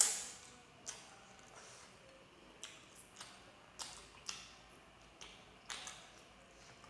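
Close-up eating sounds of a person chewing noodles, chicken and rice: a string of short, wet mouth smacks and clicks at irregular spacing, one or two a second, the loudest right at the start.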